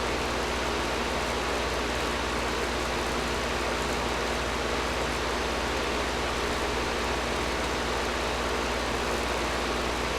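Air conditioner running steadily: an even rush of air with a low hum underneath.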